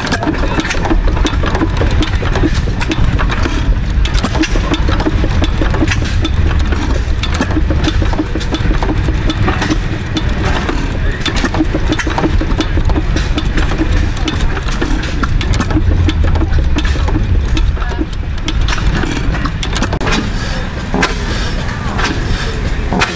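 Antique stationary gas engines running, a steady mechanical clatter of many quick clicks over a low rumble. The first is a red International Harvester engine with its flywheel turning.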